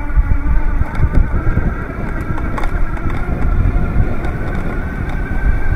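ENGWE Engine X electric bike ridden at speed: wind buffets the microphone in a heavy, uneven low rumble, with a steady high whine from the electric motor above it.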